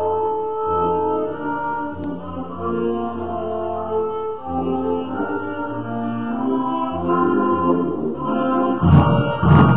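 Instrumental rendition of the national anthem with long held string notes and slow chords. Near the end a loud burst of crowd cheering breaks in as the anthem finishes.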